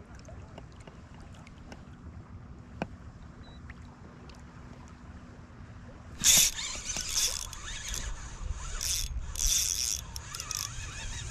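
A fishing reel running in short, loud, repeated bursts from about six seconds in as a fish is hooked and fought, over a low, steady outdoor background.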